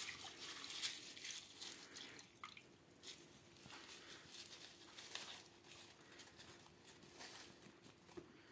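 Faint, irregular rustling and crinkling of soaked, softened leaves being handled and dropped into plastic snail containers, over a faint steady hum.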